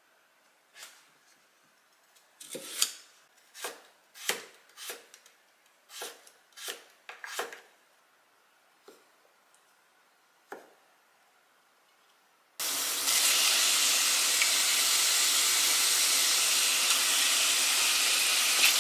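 A scattering of short knocks and scrapes of kitchen prep work. About two-thirds of the way in, a loud, steady sizzle of food frying in a hot pan starts abruptly.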